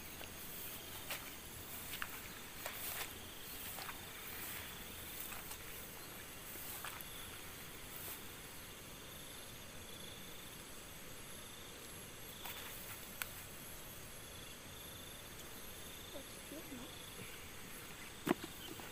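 Insects chirring steadily in high, thin tones, with scattered short rustles and clicks as rice stalks are pushed through and handled, and one sharp click near the end.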